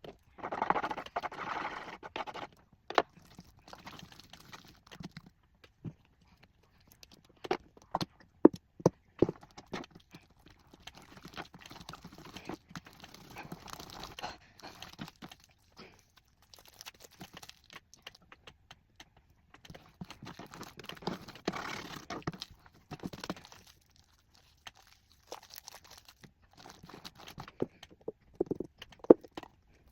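Homemade slime being mixed and stirred: irregular sticky stirring sounds with scattered sharp clicks and taps.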